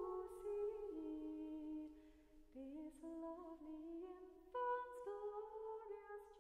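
Quiet, slow wordless vocal melody, a voice humming held notes that change pitch about once a second.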